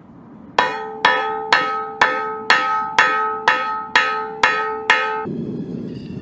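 Hammer blows on a steel I-beam used as an anvil, flattening the end of a horseshoe ring: about ten strikes at roughly two a second, each leaving the steel ringing with a clear bell-like tone. Near the end the strikes stop and a steady rushing noise takes over.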